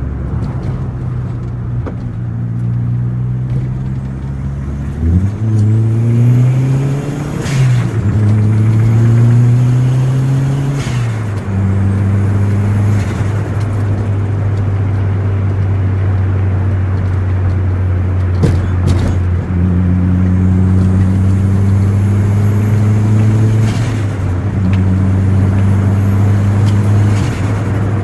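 Turbocharged Perodua Myvi 1.3 four-cylinder engine, heard from inside the cabin, pulling up through two gears with a rising turbo whistle. Each pull ends in a sudden drop at the gear change, with a short burst of turbo flutter as the throttle lifts. After that it settles to a steady cruise.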